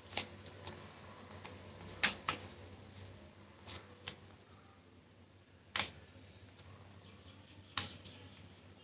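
Sharp plastic clicks and taps, about eight at irregular intervals, from the parts of a Sony TV remote's casing and keypad being handled and pressed into place.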